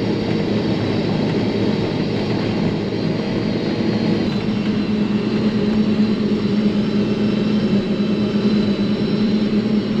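Self-propelled forage harvester chopping standing corn, heard from inside the cab: a steady engine and machine drone under load with a constant low hum. The engine is held at about 1,800 to 1,900 rpm, right where she likes it.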